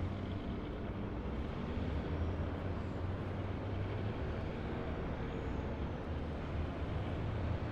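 Steady highway driving noise: a car's engine and tyres running at cruising speed, a low, even rumble with no changes.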